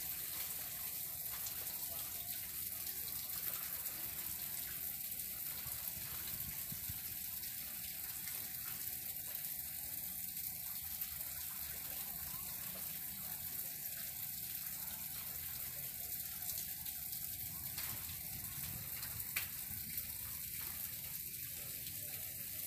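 Steady rushing of flowing water, an even hiss with no pauses.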